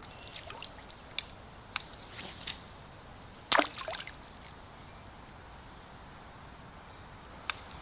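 Small splashes and ticks in still creek water over a quiet background, the loudest about three and a half seconds in.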